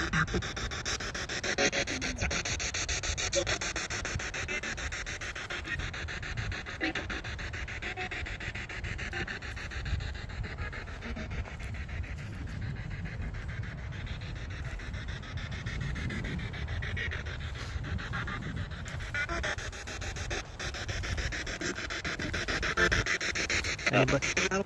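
Spirit box scanning radio stations, giving a steady rush of choppy static.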